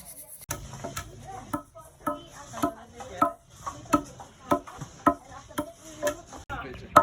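Rhythmic knocking, roughly two strokes a second, each knock sharp with a short ringing tail.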